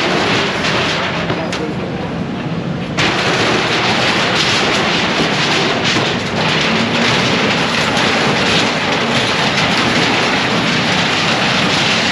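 Loud, continuous clatter and banging of building demolition work, dense with knocks and impacts. The sound thins out briefly and comes back full about three seconds in.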